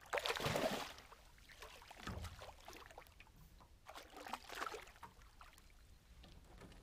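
A hooked bass splashing and thrashing at the water's surface in a few bursts: the loudest lasts most of the first second, another comes about four seconds in, with a dull thump about two seconds in.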